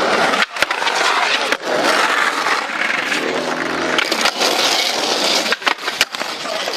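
Skateboard wheels rolling hard over rough concrete and trucks grinding a concrete ledge, a loud steady rasp that breaks off briefly several times. A low steady hum joins it for about a second near the middle.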